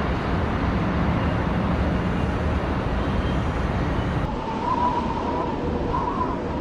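Music-video sound effect: a steady, dense low rumble as a flaming object streaks down through smoke. About four seconds in, a wavering high tone joins it.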